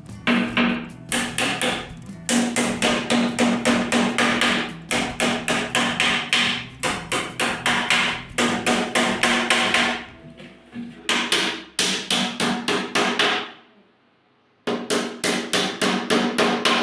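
A hammer driving nails into wood in quick bursts of about five blows a second, with short pauses between the bursts. It breaks off briefly near the end and starts again abruptly.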